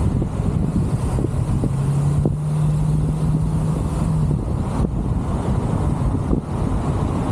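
Car driving on a city street, picked up by a roof-mounted microphone: steady low road and wind rumble. A low steady hum sounds for about three seconds in the middle.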